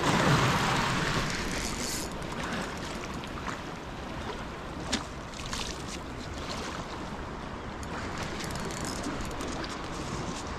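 Wind rushing over the microphone and sea water lapping against a concrete pier, strongest in the first two seconds, with a sharp click about five seconds in.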